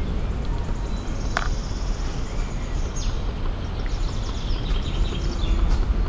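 Forest ambience: a steady low rumble with faint bird chirps, and a single sharp click about a second and a half in.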